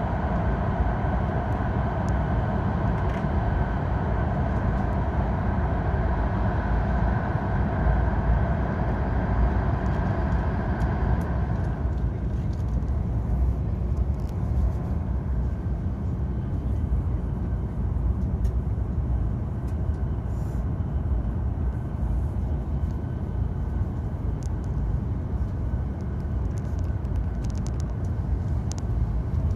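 Steady running noise of a Hokkaido Shinkansen bullet train at speed, heard from inside the passenger cabin. About twelve seconds in, the louder, higher tunnel noise falls away as the train leaves a tunnel, and a steady low rumble carries on.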